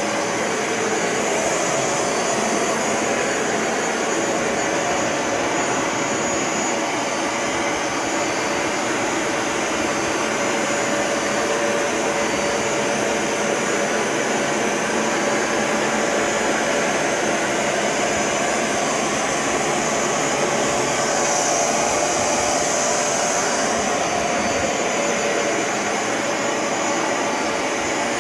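Bissell ProHeat 2X Revolution Pet Pro upright carpet cleaner running steadily, its suction motor whining as it is pushed over the carpet and draws water back up. A brief louder hiss comes about three-quarters of the way through.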